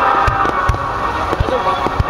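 Fireworks bursting in quick succession, about three sharp bangs a second, over a continuous crackling haze.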